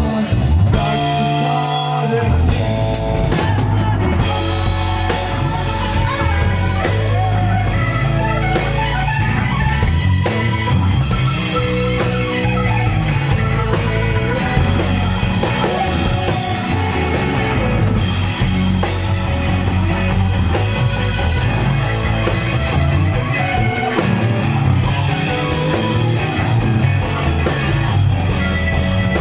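Rock band playing live, electric guitars, bass and drum kit in a steady instrumental passage.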